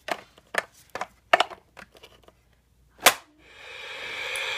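Light plastic clicks and taps as small toy figures are handled and set into a plastic toy car, with one sharper, louder click about three seconds in. Just after it a steady rushing noise swells in and holds.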